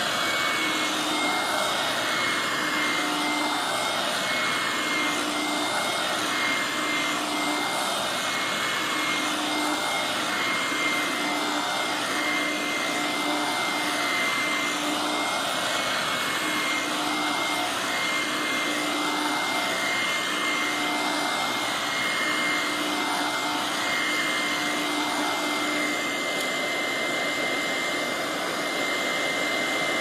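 Hoover Help Mate vacuum cleaner running on carpet, with a steady high whine over the rush of air. The sound swells and fades in a regular rhythm, about once a second, as it is stroked back and forth over the carpet.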